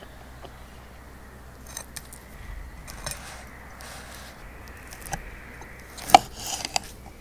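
Le Thiers steak knife cutting through a seared steak on a wooden board: short rasping strokes of the blade through crust and meat, with scattered clicks of knife and fork against the board, the loudest a sharp click about six seconds in.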